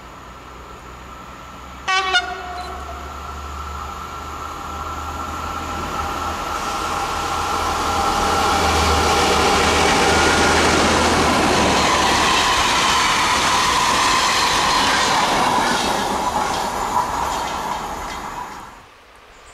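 Short horn blast from an SNCF BB 69200 diesel locomotive about two seconds in. The locomotive's diesel engine then grows louder as it comes through, hauling hopper wagons, and the wheels clatter over the rail joints as the wagons pass.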